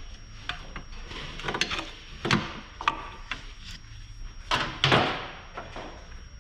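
Irregular knocks and clunks from hand tools working on a rigid car exhaust to loosen it, loudest a little past two seconds and twice close together near five seconds.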